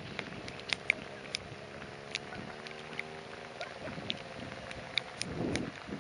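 A small motorcycle engine running steadily at a distance as the bike rides through water, its sound fading out about two thirds of the way through. Irregular sharp ticks of rain fall throughout, and a brief low rumble comes near the end.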